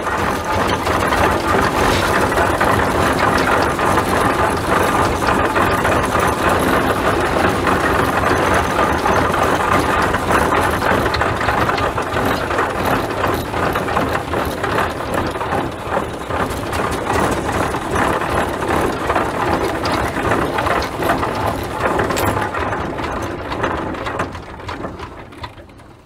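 1920 Huber steam traction engine running as it is driven, a steady dense clatter of the engine and its gearing, fading away over the last couple of seconds.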